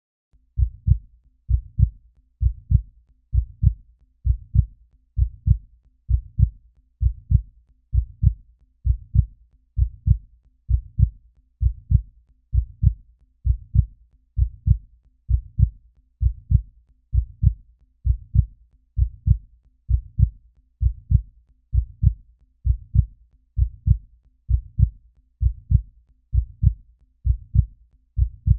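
Human heartbeat: a steady lub-dub, each beat a low double thump, repeating evenly just over once a second.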